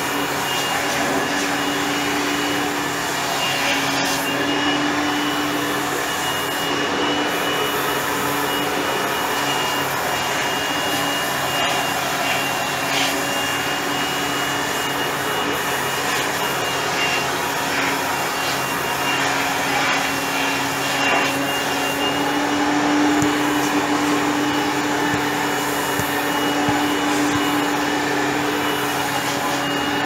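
Electric air blower running continuously, blowing dust out of an air handling unit's heating fan section: a steady rush of air with a steady high whine.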